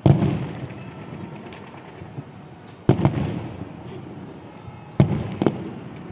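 Aerial firework shells bursting with loud booms: one right at the start, one about three seconds in and one about five seconds in with a smaller bang just after it, each trailing off in a rumbling echo.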